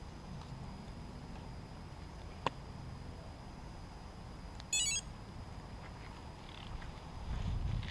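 Low rumble of wind and handling noise, with one sharp click about a third of the way in and a quick run of high chirping beeps a little past halfway. The rumble grows louder near the end.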